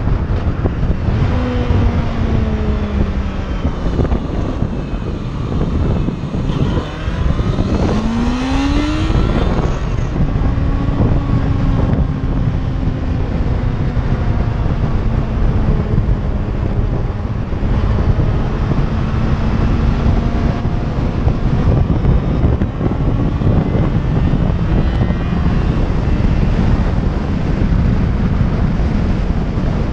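Motorcycle engine running at road speed under heavy wind buffeting on the microphone. About seven seconds in the engine note climbs steeply as the bike accelerates, then holds a steady note that slowly sags.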